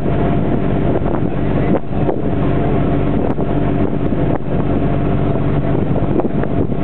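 Boat engine running steadily with an even low hum, with wind buffeting the microphone.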